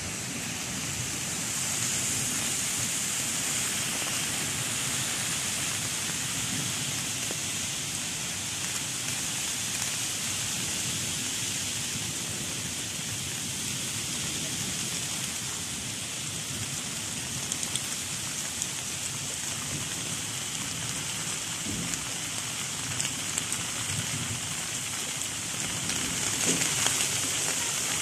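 Heavy rain falling steadily, a dense even hiss of drops, with a few sharper drop hits in the second half.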